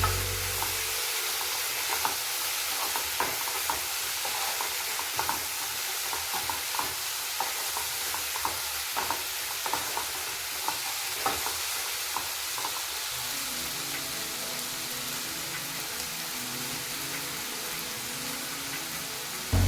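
Food frying and sizzling in a pan with a steady hiss, while a spoon stirs it, clicking and scraping against the pan. The stirring clicks stop about two-thirds of the way through, and the sizzle carries on.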